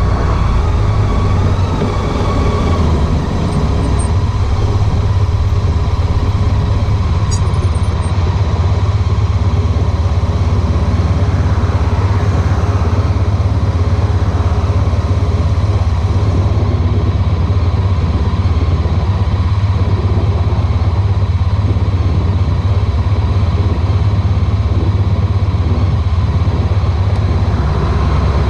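Honda ST1300 Pan European motorcycle riding on the road: its V4 engine and the wind and road noise make a steady low rumble, picked up by a camera mounted at the back of the bike.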